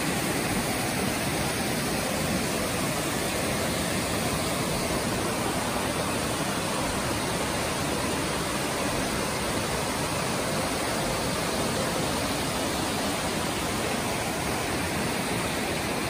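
Steady rushing of a waterfall, an even roar of falling water with no change.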